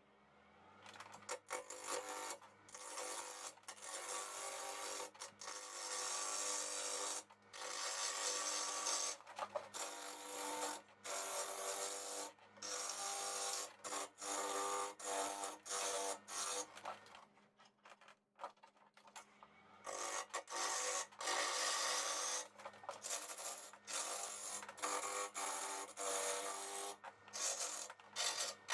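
Wood lathe motor humming while a turning tool cuts into a spinning alder blank in repeated passes of a second or two, each a loud scraping hiss. Everything stops for about two seconds just past the middle, then the lathe hum and cutting start again.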